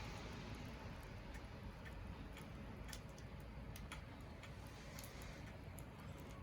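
Wood fire crackling faintly, with scattered sharp pops and ticks at irregular intervals over a low steady hiss. A low rumbling background noise fades away in the first second.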